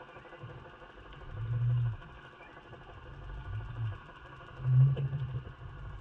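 Muffled underwater sound through a GoPro's waterproof housing on a fishing jig: low rumbling surges of water rush three times as the jig is worked, the loudest near the end, over a faint steady hum.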